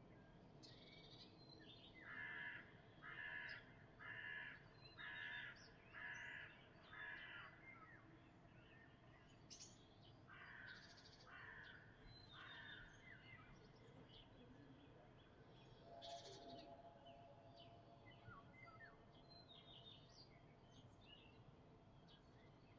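A crow cawing: six caws about a second apart, then three fainter ones a few seconds later. Small birds chirp faintly in the background over a steady low rumble.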